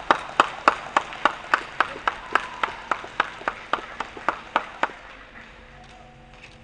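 Steady, evenly spaced hand claps, about three or four a second, applauding the end of a skating program; the clapping stops about five seconds in.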